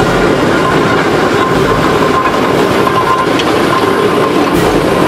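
Case steam traction engine running, a steady, loud mechanical sound from its working steam engine.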